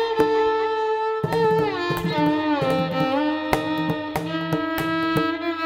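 Instrumental background music: a bowed string melody with sliding notes over regular drum strokes.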